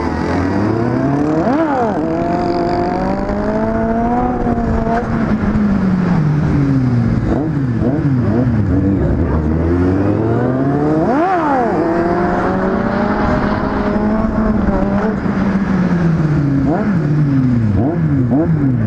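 Several motorcycle engines running together on the move, their revs climbing and falling through the gears. A quick sharp rise and fall in pitch comes about two seconds in and again a little past halfway.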